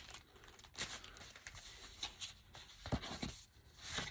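Paper envelopes being handled and slid against one another: a series of short, faint rustles and brushes of paper.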